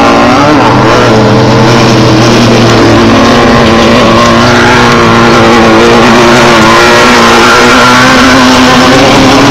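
Off-road desert race car engine running loud and close, its pitch wavering up and down as it revs.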